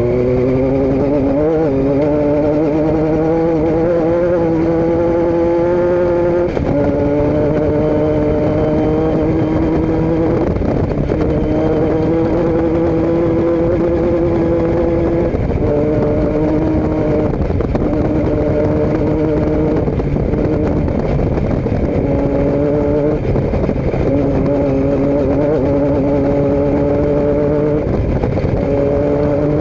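A vehicle engine running under way. Its pitch climbs over the first few seconds, then holds fairly steady, with brief dips and small shifts in pitch every few seconds as the throttle changes.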